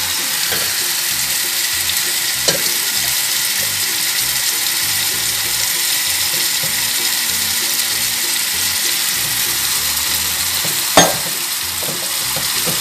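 Wooden spoon stirring milk into flour in a stainless steel pot to make béchamel, over a steady hiss. A few knocks of the spoon against the pot, the loudest about 11 seconds in.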